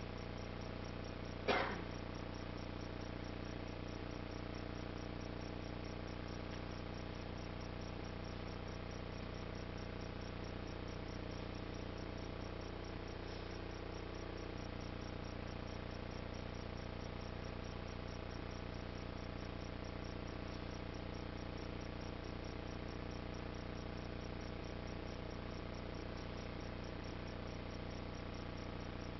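Steady electrical hum made of several constant tones over a faint hiss, with one sharp knock about a second and a half in.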